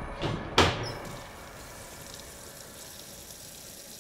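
Two knocks in quick succession near the start, the second louder, followed by faint steady background noise.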